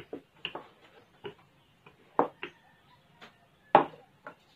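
Irregular knocks and taps of a wooden rolling pin and dough on a floured wooden table as dough is rolled out and handled, two of them much louder, a little past two seconds and near four seconds.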